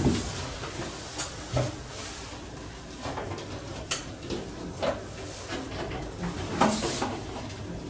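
Scattered light clicks and knocks of aluminium frame parts being handled and fitted by hand, with a short scraping rustle near the end.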